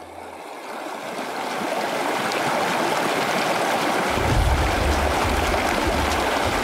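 Rushing water, fading in and growing louder over the first couple of seconds; a deep low rumble joins about four seconds in.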